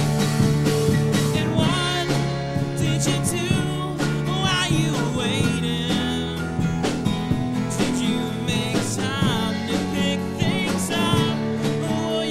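A live band playing a song: a man singing over acoustic and electric guitars, with drums keeping the beat.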